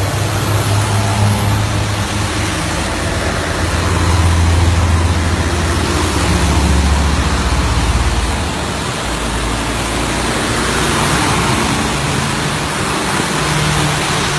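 Road traffic on a wet, flooded road: a steady hiss of tyres on water with a low engine hum. A heavier engine drone swells between about four and eight seconds in as large trucks pass close by.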